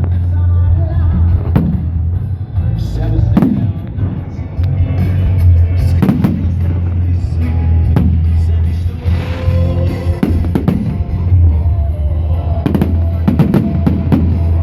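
Fireworks shells bursting, about eight bangs a second or two apart, over loud music with a heavy bass line.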